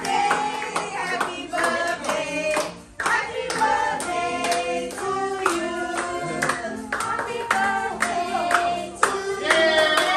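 A group of children and adults singing a birthday song together, with hand clapping in time to the beat.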